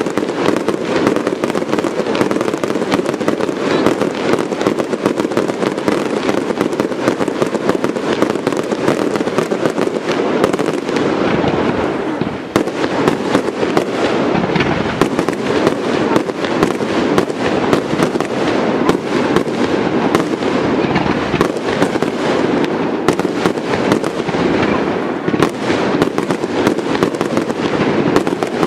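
Aerial fireworks display going off without a break: a dense, continuous crackling and popping of many shells and crackling stars bursting at once, easing only for a moment about 12 seconds in.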